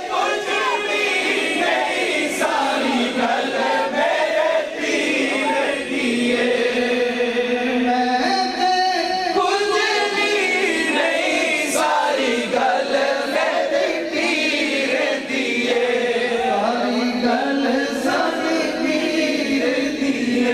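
A group of men's voices chanting a naat together, many voices overlapping in a steady sung chant.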